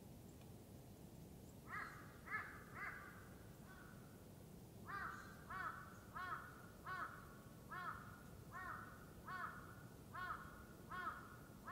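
A crow cawing: three caws in quick succession, a pause, then a steady run of about ten caws, roughly one every two-thirds of a second.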